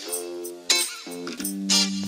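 Background music: a melody of plucked-sounding notes, a new one about every half second.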